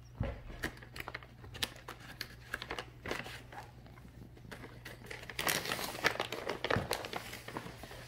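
Light, irregular clicks and taps of hard plastic as kittens paw and nose at a plastic treat-puzzle toy, knocking its pegs and clear treat cups, with a stretch of rustling and crinkling about five seconds in.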